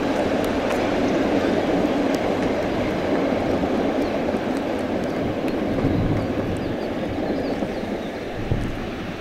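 SU42 diesel locomotive pulling a train of passenger coaches away along the station track: engine running and coaches rolling on the rails, slowly fading as they move off.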